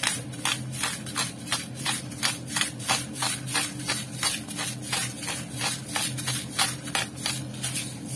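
A wok of chicken gizzards, liver and snow peas simmering in soy-vinegar sauce: the sauce pops and crackles in quick sharp ticks, about four a second, over a steady low hum.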